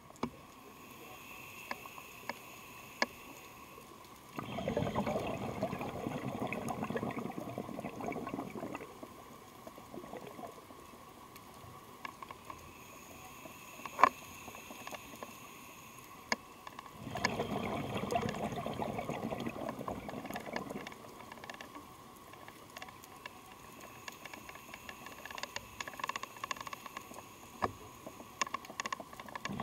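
Underwater breathing of a diver on a regulator: two long bubbling exhalations, about four seconds each and roughly twelve seconds apart, with quieter stretches between and scattered sharp clicks.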